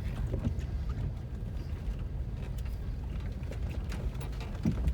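Car driving slowly, heard from inside the cabin: a steady low rumble with scattered light clicks and knocks.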